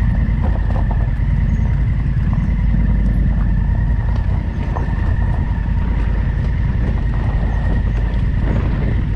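Adventure motorcycle riding along, its engine running steadily under a heavy low rumble, with a faint steady whine and scattered small clicks and knocks.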